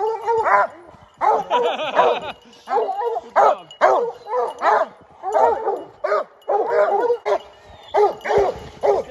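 Leashed hunting hounds baying at a downed mountain lion: a steady run of short, loud bawling barks, about two a second, each rising and falling in pitch.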